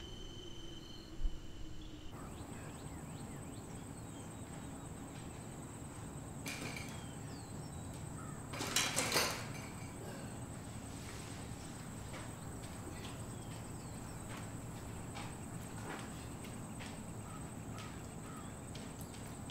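Crickets trilling for about two seconds, then, after a cut, quiet barn ambience with a steady high-pitched whine. A brief loud rustling noise comes about nine seconds in, and light scattered footsteps come toward the end.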